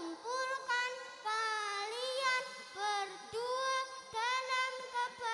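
A young boy singing into a handheld microphone, his high voice amplified through a PA system, in short phrases with notes that slide up and down.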